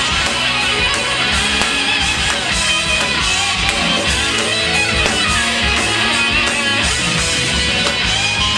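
Loud pop-rock music led by electric guitar, with no singing: an instrumental passage of the song.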